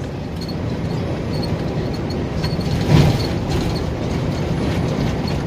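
Steady drone of a KAMAZ truck's diesel engine and tyres heard inside the cab while driving, with a single thud about three seconds in.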